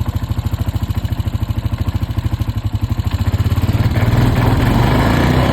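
Honda Foreman ATV's single-cylinder four-stroke engine idling with an even, rapid pulse, then picking up revs about four seconds in. It runs smoothly after a new CDI box, coil and plug wires, which the owner hopes have cured its misfire.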